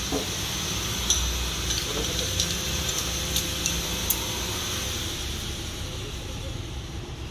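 Steady low workshop hum, with a few light clicks and taps as aluminium air-conditioning pipe and a tape measure are handled.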